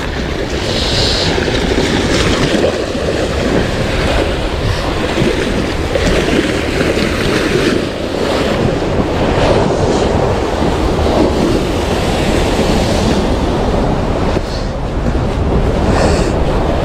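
Sea waves washing, with wind buffeting the microphone: a steady, loud rushing noise.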